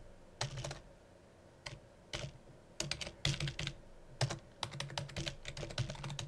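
Typing on a computer keyboard: keystrokes come in quick runs separated by short pauses.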